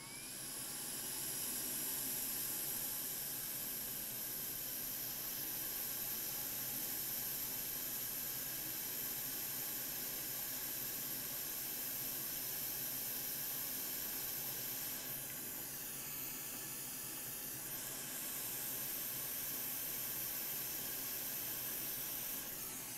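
Hot air rework station blowing a steady hiss of air while a small capacitor held in tweezers is reflowed onto a laptop motherboard. The hiss builds up over the first second and thins briefly a little past the middle.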